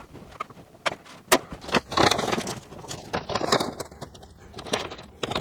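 Magnets being set against the steel bulkhead of a Ford Transit van, heard as scattered sharp clicks and knocks with a few short rustles of handling.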